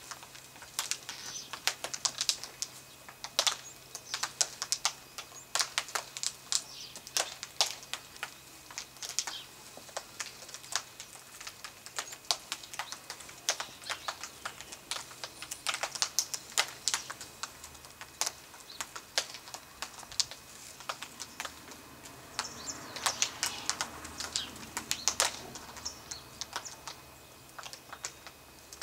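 Yellow-tailed black cockatoos feeding: irregular sharp clicks and cracks as their beaks crunch seed cones and snap twigs. A longer rustling comes about three-quarters of the way through.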